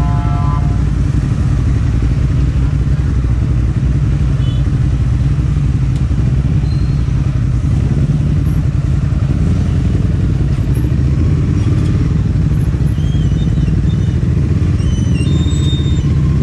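Ducati Hypermotard SP's L-twin engine idling steadily in stop-and-go traffic, with other motorbikes running close by. A vehicle horn sounds briefly at the very start.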